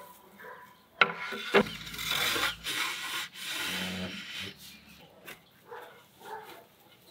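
Homemade slatted wooden folding chair being unfolded: two sharp wooden knocks about a second in, then a few seconds of wood rubbing and sliding against wood as the frames swing open and the seat settles into place.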